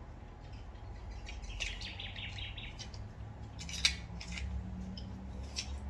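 Small metal carburettor parts clicking lightly as they are handled, the sharpest click a little under four seconds in. A quick high chirping trill runs for about a second near the two-second mark, over a steady low hum.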